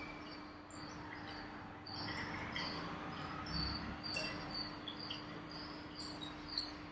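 Quiet room tone: a steady low hum with many short, faint, high-pitched chirps scattered through it, several a second.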